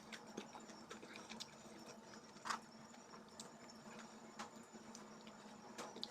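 Quiet close-up eating sounds: chewing rice and jengkol with scattered soft mouth clicks, and one louder click about two and a half seconds in.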